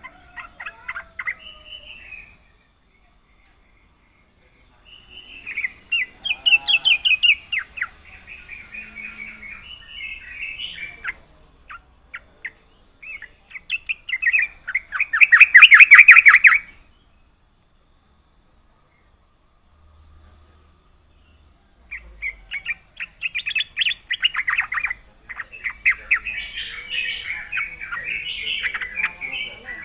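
Sooty-headed bulbul (trucukan) singing in bursts of rapid chattering phrases separated by pauses of a few seconds. The loudest burst comes about halfway through, and the song runs almost without a break over the last third.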